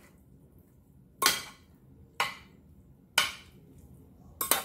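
A serving spoon knocking against a frying pan and a ceramic baking dish while sauce is spooned over pasta: sharp knocks about a second apart, with a quick double knock near the end.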